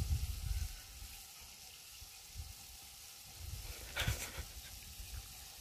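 Bolognese mince and sauces sizzling in a cast iron pot over a wood fire, a steady faint hiss. About four seconds in comes one brief, louder rasp.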